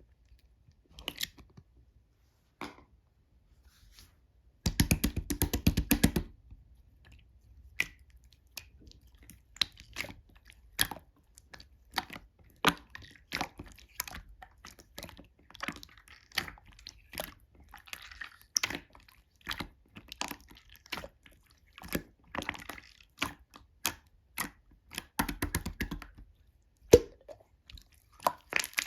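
Slime being squished and pressed by hand, giving sharp wet pops and clicks one after another, with two stretches of rapid crackling, about five seconds in and again near the end.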